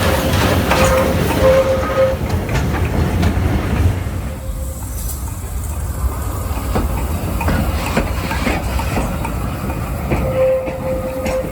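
S160 2-8-0 steam locomotive moving slowly past at close range: a heavy rumble with repeated clanks and clicks from the wheels and motion. A steady tone sounds for about the first two seconds and again near the end.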